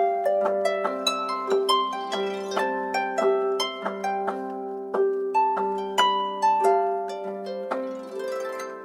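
Samsung Galaxy phone alarm ringtone: a harp-like melody of quick plucked notes ringing over each other. It fades out near the end.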